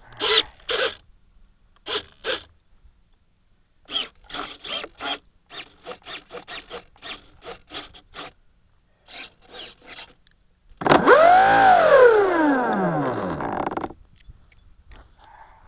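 A run of short scraping strokes, uneven at first and then about three a second. Then, about 11 seconds in, the plane's brushless electric motor, an NTM 4248 650kv swinging an 11x8 APC propeller, is briefly throttled up and back down: its whine rises, peaks and falls over about three seconds, then cuts off.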